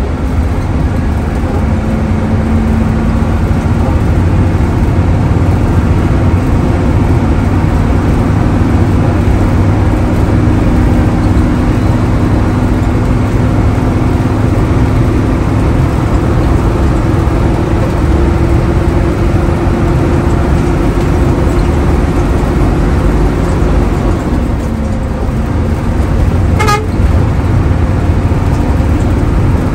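Hino AK8 bus's diesel engine running under way, heard from inside the cabin: a steady heavy rumble with an engine note that climbs slowly, as when the bus picks up speed. A short sharp click sounds near the end.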